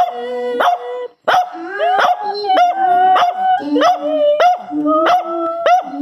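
A dog barking and howling, with sharp repeated barks that run into held, wavering howls.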